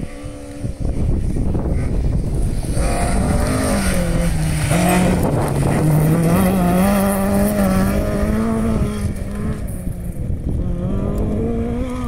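Rally car engine at full throttle on a gravel stage, approaching and passing close by. Its pitch rises and dips with throttle and gear changes, loudest about halfway through.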